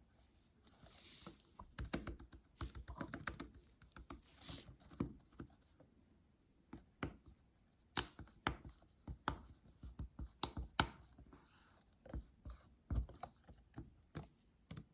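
Keys of an Apple Magic Keyboard for iPad being pressed: irregular runs of short clicks, with a few louder taps about halfway through.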